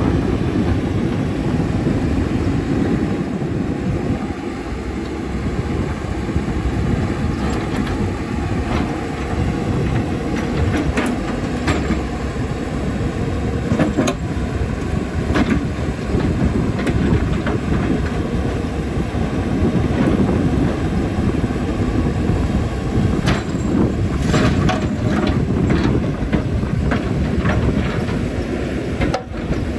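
CAT 320D excavator's diesel engine running steadily under working load, with scattered sharp knocks and clatter as stones strike the bucket, bunched in two spells around the middle and toward the end.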